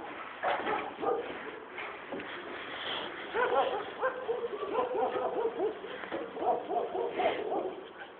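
A string of short pitched animal calls, few at first and coming thick and fast from about three seconds in.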